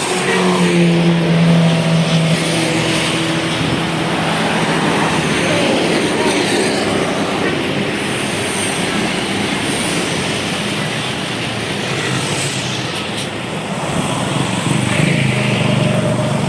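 A bus or other heavy vehicle passing close by with its engine running, over steady road traffic noise. A low steady engine hum is strongest in the first few seconds and returns near the end.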